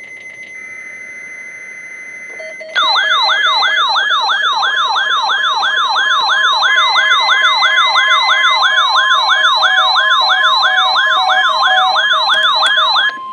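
A loud electronic siren yelping rapidly, about three sweeps a second, starts a few seconds in and cuts off just before the end. Before it and beneath it is a NOAA Weather Radio weekly test: SAME header data bursts at the start, then a steady alert tone.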